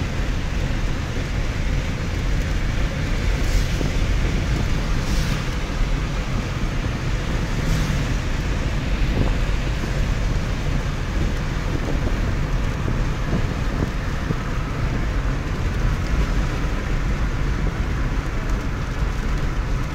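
Steady road noise inside a car's cabin while it drives along a highway.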